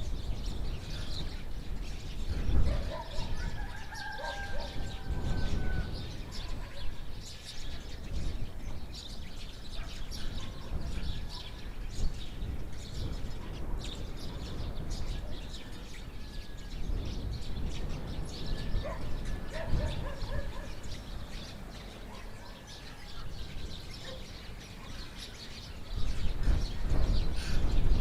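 Village outdoor ambience: small birds chirping on and off over a steady low rumble, which grows louder near the end.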